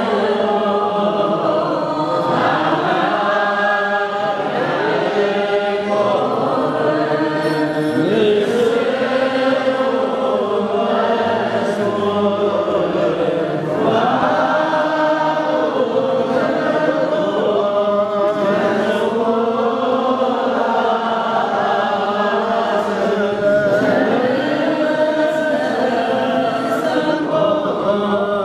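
A group of voices singing a liturgical chant together: long, drawn-out notes that slowly rise and fall, without a break.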